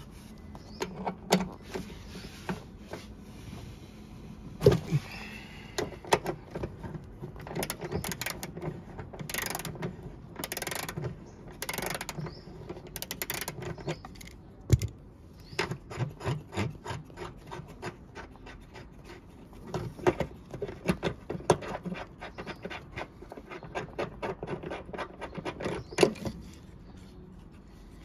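Ratchet wrench clicking as the seat belt retractor's mounting bolt is loosened, in quick runs of clicks through the second half. A few sharp knocks and some scraping of metal and plastic as the retractor is worked free of the pillar.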